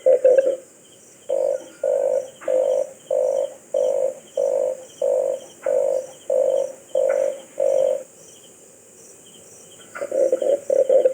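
Red collared dove calling: a run of about eleven low, rough coo notes, evenly spaced at roughly one and a half a second. A brief pause follows, and faster, rapidly pulsed calling starts again near the end.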